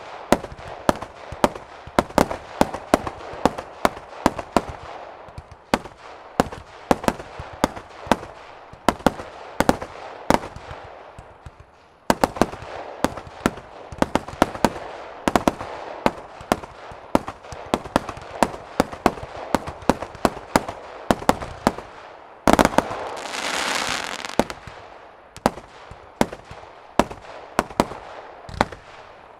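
Fireworks display heard from about 140 m: aerial shells from several ground positions burst in quick succession, several sharp bangs a second over a constant crackle. About 22 seconds in, a louder burst sets off a couple of seconds of dense hissing crackle.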